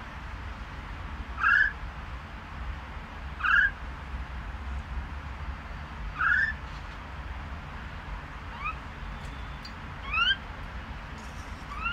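Common myna calling: a short, rising whistled note repeated about every two seconds, the first three louder than the later ones.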